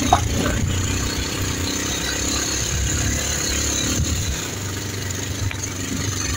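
Motorcycle engine running steadily while the bike is ridden, heard from the pillion seat.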